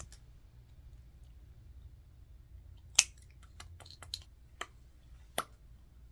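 Sharp clicks and taps from lip-makeup packaging being handled, a lip tint's cap and wand and a small lipstick tube. There are about six separate clicks in the second half, the first and loudest about three seconds in, over a faint low hum.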